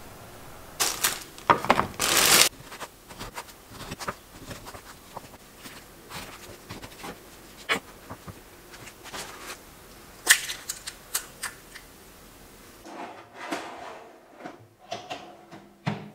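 Household handling noises: a burst of rustling about two seconds in, then scattered light clicks and knocks of kitchen work on a wooden cutting board, and a small toaster oven being handled near the end.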